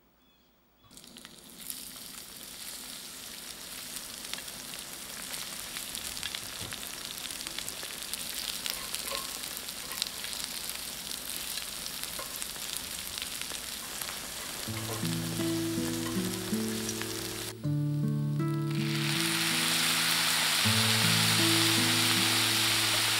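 Dried zucchini strips frying in perilla oil in a cast-iron skillet. They start sizzling suddenly about a second in as they hit the hot oil, and are stirred with chopsticks. The sizzle keeps building and is louder near the end, with soft background music coming in about two-thirds of the way through.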